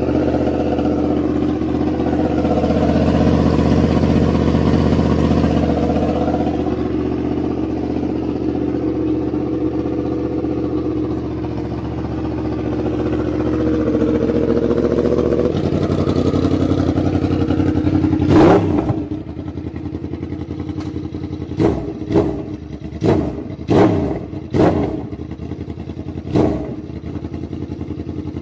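Yamaha R1 crossplane inline-four with an aftermarket VooDoo exhaust idling steadily, then revved sharply once about two-thirds of the way in, followed by a run of about six quick throttle blips.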